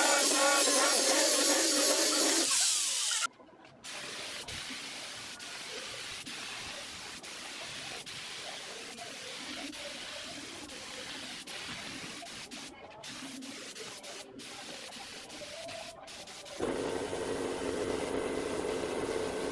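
An electric orbital sander runs against a wooden cabinet top for about three seconds, then cuts off. After a brief gap, an air spray gun hisses as it sprays clear finish, in several short stretches. Near the end a steady machine hum with a few held tones starts.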